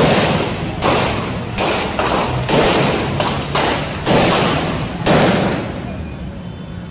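Gunfire in a shootout: about nine shots at irregular spacing over some five seconds, each followed by a ringing echo, then the firing stops.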